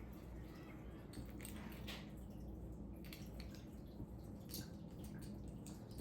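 Lego pieces being handled: scattered small plastic clicks and taps, over a low steady hum.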